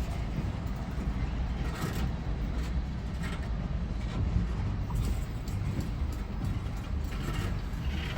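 Train of railway tank cars rolling through a yard: a steady low rumble of the moving cars, with a few faint clacks.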